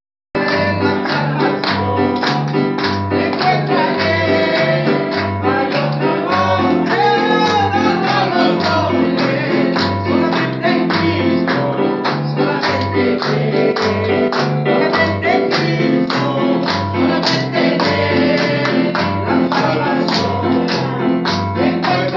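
Gospel worship music on an electronic keyboard over a steady drum beat and repeating bass line, with a woman singing into a microphone.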